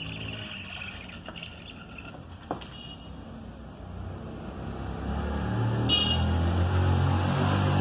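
A single sharp click, then a low, steady engine-like rumble that grows louder about five seconds in.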